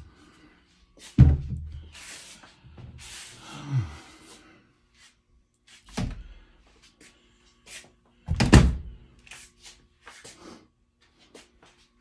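Interior door being worked on its re-fixed hinge, with four thuds as it is moved and knocks against the frame, the loudest about eight and a half seconds in. The hinge screws now sit in glued wooden dowels plugging the stripped holes, and the door is holding firm.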